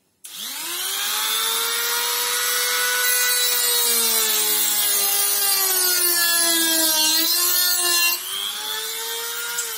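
Small handheld rotary tool with a cut-off disc spinning up and cutting into a TV's LED backlight strip: a steady high whine with a grinding edge. Its pitch sags as the disc bites in the middle, then rises again and the level drops about eight seconds in as the cut eases off.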